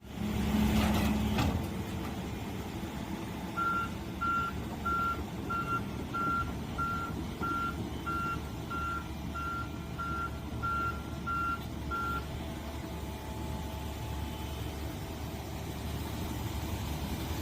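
Heavy construction machinery running steadily, louder for the first second or so. A warning alarm beeps at one high pitch about twice a second for roughly eight seconds in the middle.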